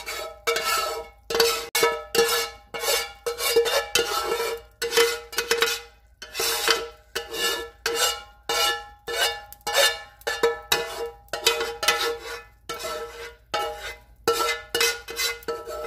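Metal spoon knocking and scraping against metal cookware as food is emptied into the soup pot. About two strikes a second, each leaving a short metallic ring.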